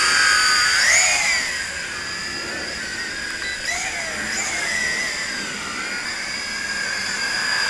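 YiZhan Tarantula X6 quadcopter's brushed motors and propellers whining in flight, several close pitches wavering together. The whine rises sharply about a second in as it climbs away, grows fainter through the middle while it flies at a distance, and gets louder again near the end.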